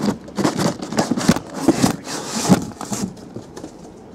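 Cardboard cases scraping and knocking as they are pulled out of a larger box and set down on a table, with many quick knocks in the first three seconds and quieter near the end.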